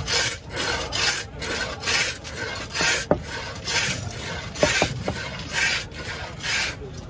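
A long fish-cutting knife blade scraping in about a dozen quick rasping strokes, roughly half a second apart.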